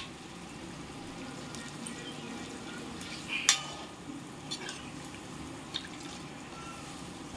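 Slotted metal spoon stirring a thick curry in an aluminium kadhai, clinking against the pan a few times, the loudest about halfway through, over a steady low hiss of the curry cooking on the gas stove.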